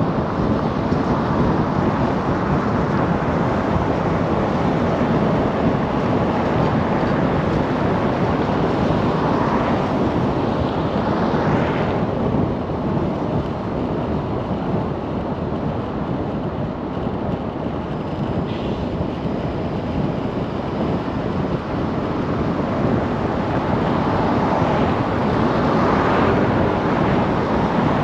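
Steady road, tyre and wind noise of a car driving on city streets, swelling louder twice, about ten seconds in and again near the end.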